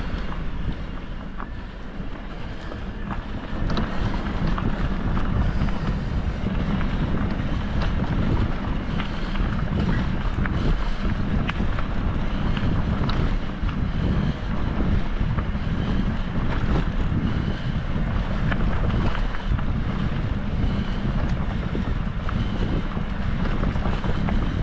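Wind buffeting the microphone over a steady low rumble, with scattered light clicks and ticks.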